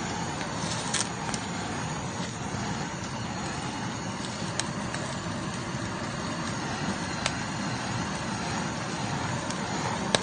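Handheld butane torch flame hissing steadily as it is played over pork on a charcoal grill, with a few sharp pops.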